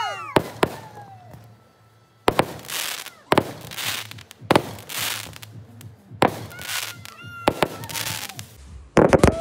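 Aerial fireworks going off: a sharp bang about once a second, each followed by a crackling hiss. Whistles fall in pitch near the start and again at the end.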